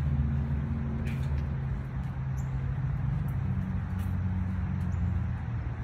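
A steady low engine hum, like a motor vehicle idling, its pitch shifting slightly about two seconds in, with a few faint high ticks over it.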